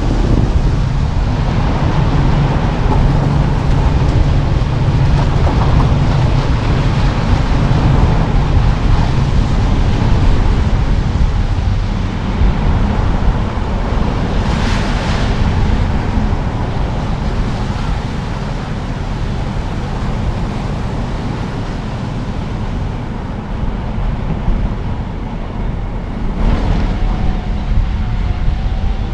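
A car driving along a road: steady tyre, road and wind noise with a low engine hum, and a brief louder hiss about fifteen seconds in.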